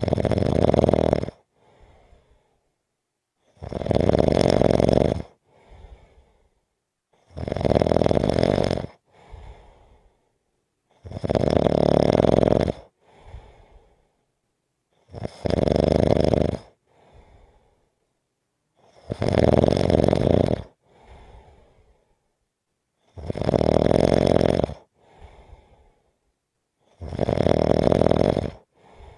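Snoring in a steady rhythm: eight snores, one about every four seconds, each followed by a fainter breath.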